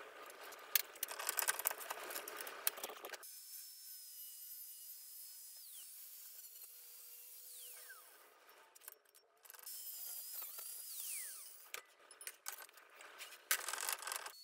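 Angle grinder with a cut-off disc cutting a steel blank held in a bench vise: a high whine over a hiss of grinding, its pitch dropping several times as the disc bites into the steel. Clicks and clatter of the steel being handled in the vise come at the start and near the end.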